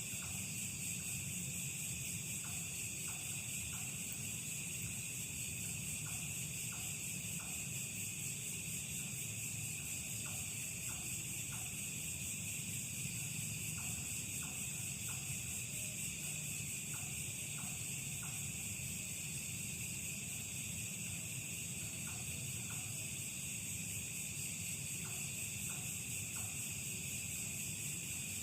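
Night insect chorus: crickets and other insects shrilling steadily, with short calls from some other creature repeating in small groups of two to four every few seconds.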